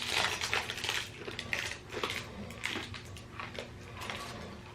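Hard pine nut candy being crunched between the teeth: a run of sharp, crackly crunches, thickest in the first couple of seconds and thinning out after. The candy is very hard.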